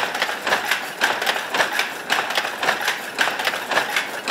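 A Toyoda automatic shuttle loom running at speed: a rapid, even clatter of about four knocks a second as the shuttle is thrown to and fro and the weft is beaten in.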